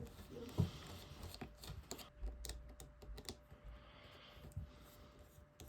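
Light, irregular clicks and ticks of a small Phillips screwdriver and tiny screws being worked out of an iPhone 3GS's display assembly, with a brief low bump about two seconds in.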